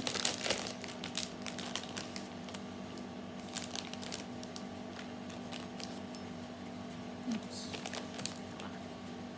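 Plastic lolly packet being handled, with scattered light clicks and faint crinkles and a brief louder crinkle near the end, over a steady low hum.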